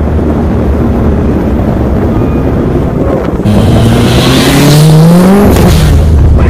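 A car engine revving up, its pitch climbing for about two seconds with a rush of exhaust noise as the car speeds by, starting about halfway through, over electronic music with a heavy bass.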